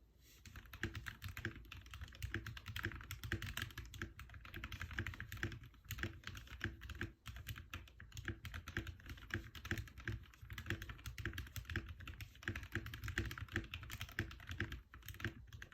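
Fast, continuous typing on a Novelkeys NK65 Entry Edition mechanical keyboard with Gateron KS-9 Yellow linear switches and stabilizers lubed with Krytox 205g0, under PBT keycaps. The keystrokes run densely, with a brief pause about seven seconds in.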